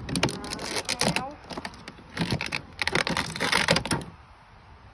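Toy packaging being handled while a figure part is pulled out of its box: irregular rustling and clicking, with heavier crinkling bursts in the middle, settling quieter near the end.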